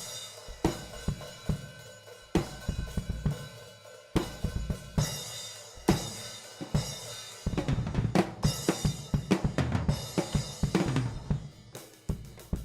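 Acoustic drum kit played solo during a sound check: kick, snare and cymbal strokes with hi-hat, breaking into a fast, dense run of strokes about seven seconds in that lasts a few seconds.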